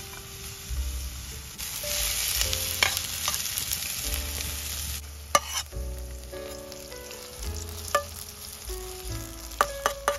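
Chopped onion and red pepper sizzling in a stainless-steel frying pan over a wood fire. The sizzle is loudest in the middle and stops abruptly. It is followed by clicks and scrapes of a metal spatula against the pan as the vegetables are scooped out.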